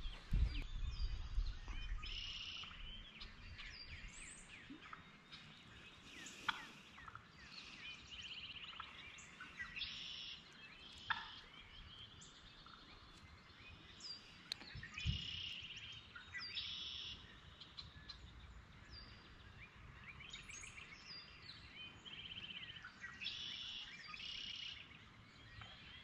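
Songbirds singing in the spring woods, with many scattered chirps and one bird repeating a short trilled phrase about every seven seconds. A low rumble sits under the first couple of seconds.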